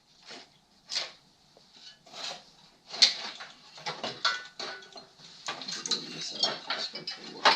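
Irregular metal clinks, scrapes and rattles of hand tools and loose metal engine parts being handled during the teardown of an air-cooled VW engine, growing busier about halfway through.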